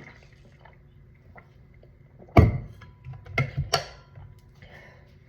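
A sharp knock about two seconds in, followed about a second later by a quick run of three or four smaller clicks and knocks, like objects being handled.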